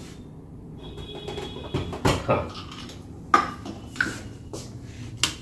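Light knocks and clinks of a plastic beaker and small lab bottles being handled and set down on a metal-topped magnetic stirrer, several separate taps spread over a few seconds.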